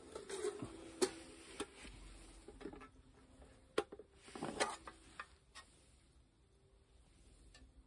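Faint clicks and metallic knocks of an aluminium mess tin being handled, its lid lifted off by its wire handle, with a small cluster of knocks about halfway through.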